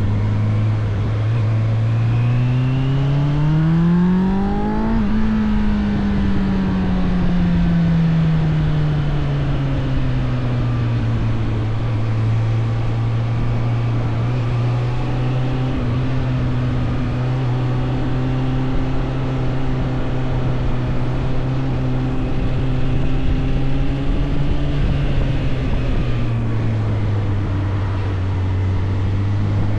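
Suzuki GSF 600 Bandit's inline four-cylinder engine running while riding. The revs climb for about three seconds, fall back gradually and then hold a steady cruise, dip slightly near the end and begin to rise again.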